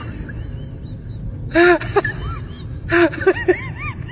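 A high-pitched voice making short bursts of quick rising-and-falling notes, in three groups: once in the middle and twice near the end, over a low steady background hum.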